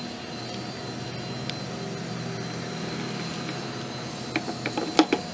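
A steady machine hum in the background. Near the end come several sharp, small metallic clicks as a new oil pump piston is seated in a Husqvarna 440 chainsaw's oil pump housing.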